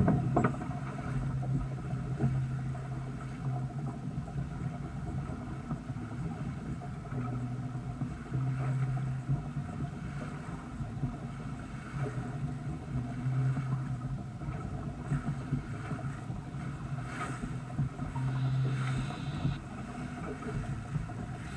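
Bow wave rushing and splashing along the hull of a sailboat under way, with a steady low hum that swells and fades every few seconds. A single sharp knock right at the start.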